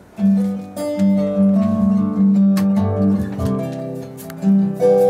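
Acoustic guitars strummed and picked together, the song starting just after the beginning with ringing chords.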